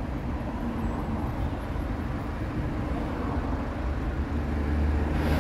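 Steady low rumble of street traffic, growing a little louder near the end as a vehicle draws closer.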